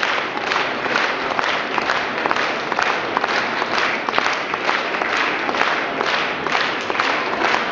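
Theatre audience applauding in unison, a steady rhythmic clapping at about two claps a second.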